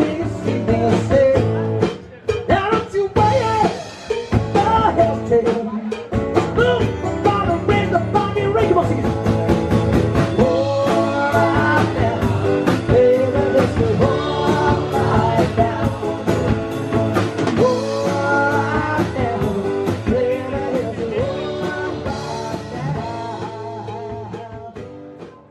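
Live acoustic rock: two men singing over strummed acoustic guitars, one a Takamine. The song gets quieter near the end.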